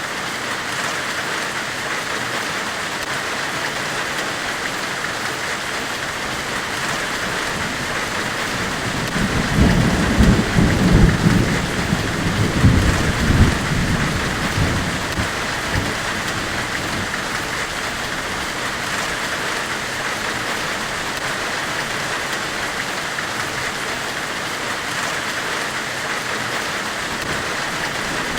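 Steady white-noise hiss, like heavy rain. A deep rumble swells up about nine seconds in and dies away by about sixteen seconds.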